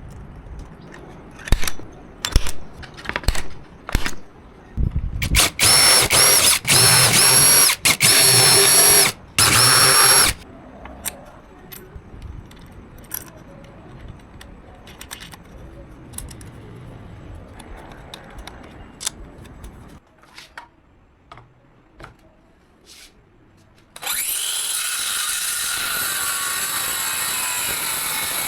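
A few clicks and knocks, then a power-tool motor whining in several short runs lasting about five seconds in all. Near the end a circular saw starts and runs steadily, cutting.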